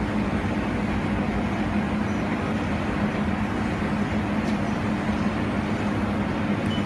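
Steady hum and fan-like noise of a fiber laser welding machine running just after power-up, holding an even level throughout.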